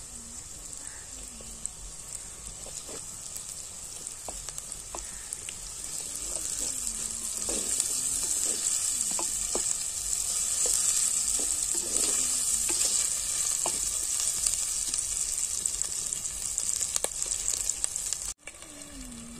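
Chopped onion, chillies and ginger-garlic paste sizzling in hot oil in a clay pot, stirred with a wooden spatula that scrapes and knocks against the pot. The sizzle grows louder about six seconds in.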